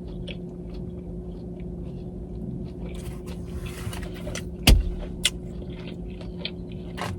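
Steady low hum of a car idling, heard from inside the cabin, with scattered small mouth and eating clicks and one sharper click a little past halfway.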